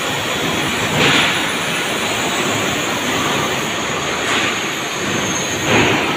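Machine-shop din from a running CNC turning lathe and surrounding machinery: a steady, loud noise with three brief louder rushes, about one, four and nearly six seconds in.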